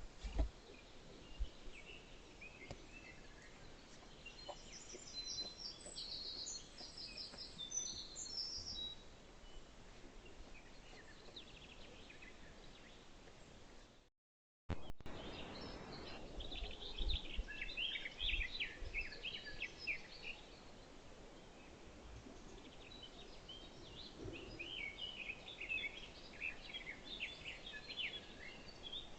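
Several songbirds singing and chirping over a low outdoor hiss, with a few low thumps near the start and again just after halfway.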